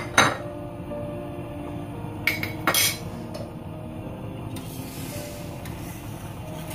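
Sugar being stirred into water in a stainless steel saucepan, with a utensil knocking sharply against the pan twice at the start and twice more a little over two seconds in.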